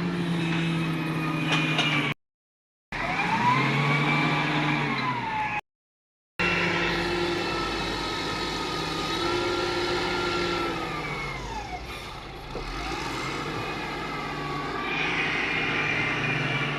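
Excavator's diesel engine running under load, with a whine that rises and falls as the hydraulics work. The sound cuts out completely twice, for under a second each time.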